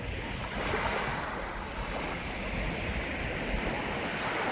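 Sea waves washing onto a beach in a steady wash of surf, with wind rumbling on the microphone.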